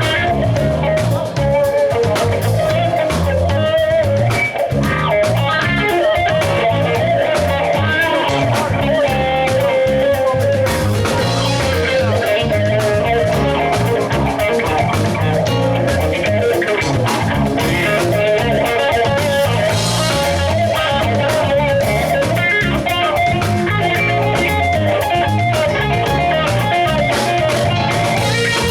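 Live blues band playing, with the lead electric guitar taking a solo over bass guitar and drums during a sound check.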